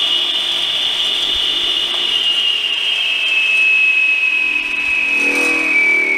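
Electric wet stone and tile saw running with no load, its large blade spinning free while the pump sprays water over it. A steady high whine over a hiss, slowly dropping in pitch.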